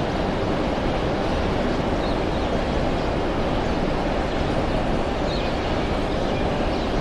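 Steady rumble of two approaching GM-EMD Class 35-600 diesel locomotives, blended with wind noise on the microphone.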